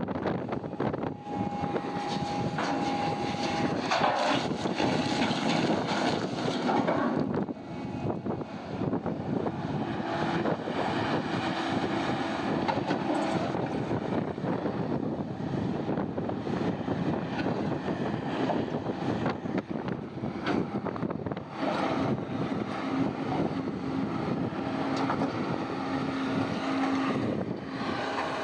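Heavy mining machinery working at a rock crusher: engines running steadily under a continuous clatter of rock, with a few brief whining tones along the way.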